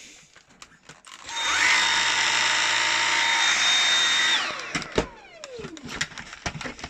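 Dyson V8 Animal cordless stick vacuum switched on about a second in: the motor whine rises quickly to a steady high pitch with an airflow rush, runs for about three seconds, then the trigger is released and the whine falls away as the motor spins down. A few knocks and clicks of handling follow.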